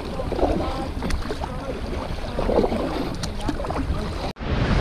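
Choppy sea sloshing and splashing around a moving sea-fishing kayak, with wind buffeting the kayak-mounted camera's microphone. Near the end the sound cuts out abruptly and gives way to waves breaking on the shore.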